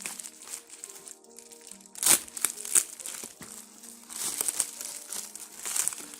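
Plastic bubble-wrap packaging crinkling in irregular surges as it is handled and opened, loudest about two seconds in.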